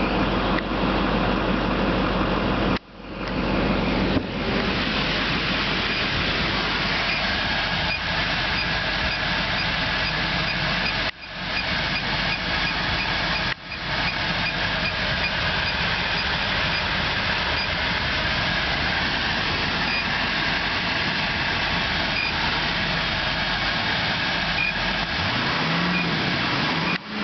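Chevy Silverado 2500 diesel truck engine running steadily, with the sound dropping out briefly three times and a short rise and fall in pitch near the end.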